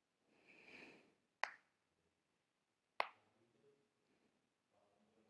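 Near silence with two sharp, short clicks about a second and a half apart, and a faint soft rustle shortly before the first.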